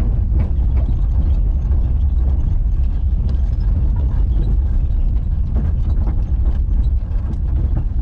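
A motor vehicle driving: a steady low rumble with scattered rattles and knocks.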